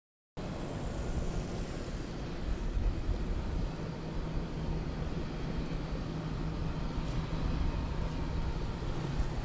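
Steady engine drone of fire apparatus running at the scene, with a low rumble. It cuts in abruptly just after silence.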